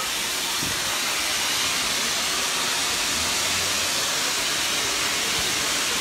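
Natural gas escaping under pressure from a split gas pipe: a steady, unbroken hiss.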